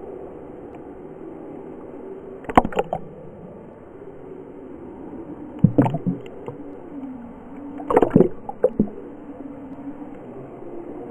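Pool water sloshing and lapping against a GoPro's waterproof housing at the surface, heard muffled, with three louder, brief noises about two and a half, six and eight seconds in.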